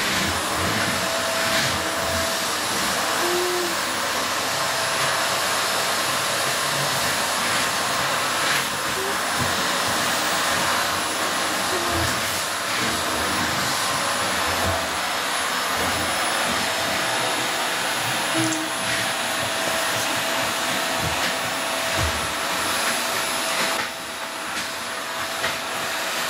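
Steady, loud rushing noise of running machinery, like a blower, with a faint steady whine through it; it eases off a little near the end.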